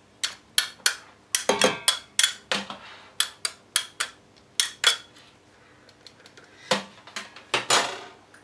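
Metal teaspoon clinking and scraping against the stainless steel head of an immersion blender and the steel pot, cleaning cherry jam off the blender. It makes a quick run of sharp clinks with a short ring, then a pause of about a second, then a few more knocks.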